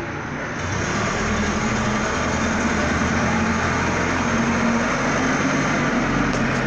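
A vehicle engine running steadily, its level rising a little about a second in.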